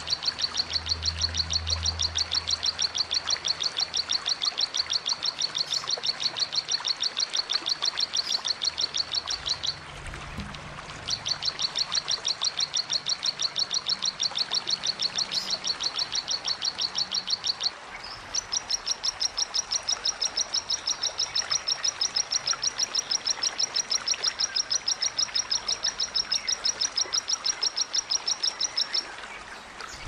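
Small prinia-type songbird (cici) giving its rapid-fire 'tembakan' song: long runs of high notes repeated quickly and evenly. The runs come in three bouts, with short pauses about ten seconds and eighteen seconds in.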